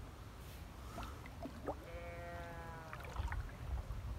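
Paddling a canoe: a few light knocks of the paddle against the canoe, and about two seconds in a single steady squeal lasting about a second.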